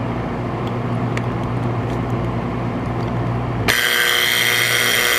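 Ingraham-made Wards model 9520 electric alarm clock going off: after a steady low hum, its alarm buzzer cuts in suddenly about three and a half seconds in and keeps buzzing loudly.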